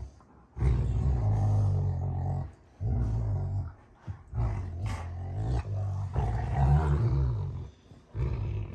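Rottweilers growling while play-fighting, low rumbling growls in four or five long bouts broken by short pauses.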